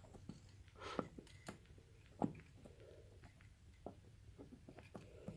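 Scattered faint metallic clicks and taps of a temporary snap ring being worked onto a riding mower's front wheel axle, the sharpest click about two seconds in.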